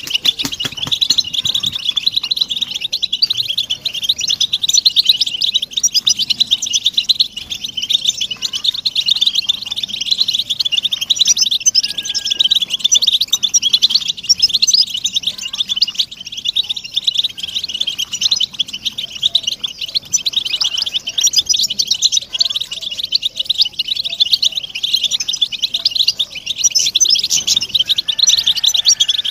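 A flock of European goldfinches calling together in a dense, unbroken chorus of rapid, high twittering chirps. These are the goldfinch contact and mating calls played to stimulate captive males to sing.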